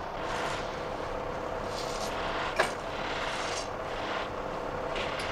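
Nickel-plated scissor halves being handled at a workbench: soft scraping and rustling that comes and goes every second or two, with one sharp metal click about two and a half seconds in, over a steady background hum.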